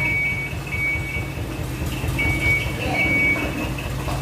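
Mini dump truck's reverse alarm beeping repeatedly in steady half-second tones as the truck backs up, over its engine running at low speed.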